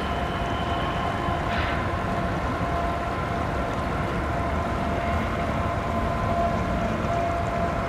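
Distant Canadian Pacific freight train, CP 112 East, rolling along the far bank across the river. A steady low rumble carries several long, steady high-pitched tones above it.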